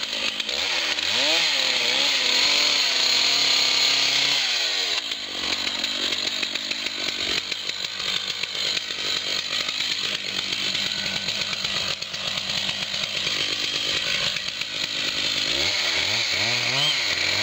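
Chainsaw running under load while cutting tree wood, its engine note sweeping up and down several times as the throttle is worked.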